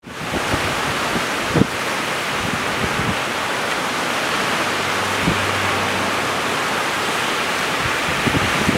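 Tropical-storm wind and surf breaking on the shore, a steady loud rush. Brief low thumps of wind buffeting the microphone come now and then, the strongest about a second and a half in.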